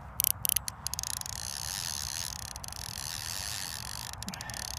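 Fishing reel running with a fast, fine, steady ticking while a hooked carp is played, after a few short scratchy handling sounds in the first second.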